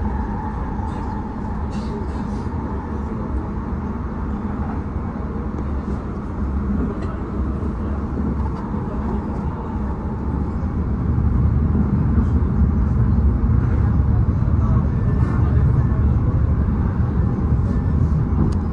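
Running noise of an electric passenger train heard from inside the carriage: a steady rumble of wheels on the track that grows louder and deeper about eleven seconds in.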